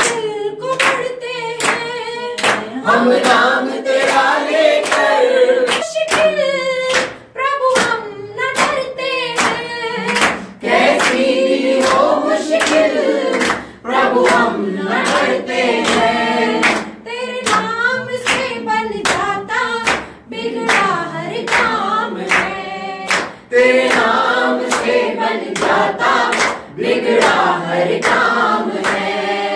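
A group of voices singing a devotional song to steady, rhythmic hand clapping.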